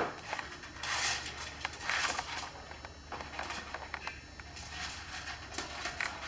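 Soft rustling with scattered light taps and scratches, loudest in two short spells in the first half: a budgie shuffling about inside its cardboard box.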